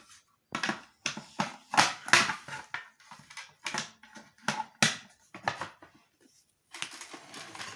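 Hard knocks and clacks, about a dozen separate ones, as the parts of a Soviet Raketa 9A vacuum cleaner are handled and put back together, followed near the end by a rustling.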